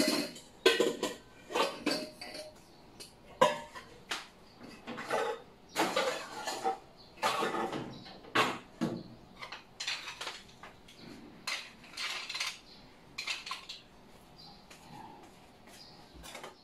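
Stainless steel bowls and kitchen utensils clinking and clattering as they are lifted from a wire dish rack and put away, in irregular knocks with short metallic ringing, the loudest in the first few seconds.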